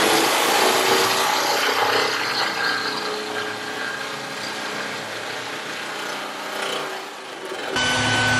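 Power saw cutting through the sheet-steel rear door of a Mercedes Sprinter van to make a window opening: a harsh, continuous cutting noise, so loud. Near the end it changes abruptly to a steadier whine.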